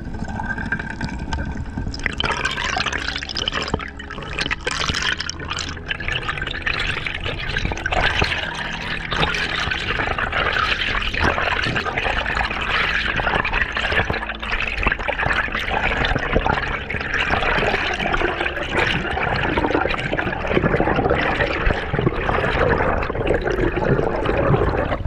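Underwater bubbling and rushing water, with air bubbles streaming past the camera. It is a dense gurgling hiss full of small pops that swells about two seconds in.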